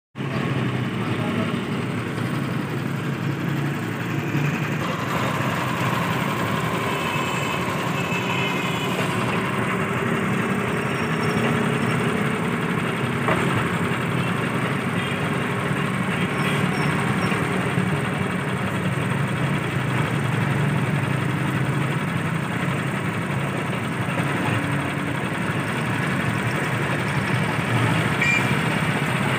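Small engine powering a sugarcane juice crusher, running steadily at an even speed.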